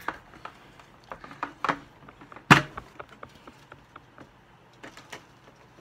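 A metal collector's tin being handled and opened by hand: scattered light clicks and taps, with one sharp clack about two and a half seconds in.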